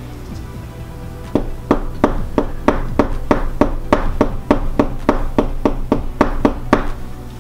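Gloved knuckles knocking on a tabletop, a steady run of about eighteen knocks at roughly three a second, starting about a second and a half in and stopping shortly before the end.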